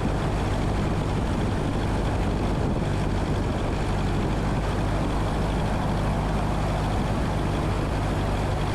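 Steady cabin drone of a Cessna 172N in flight: its four-cylinder Lycoming piston engine and propeller running at a constant note, with airflow noise.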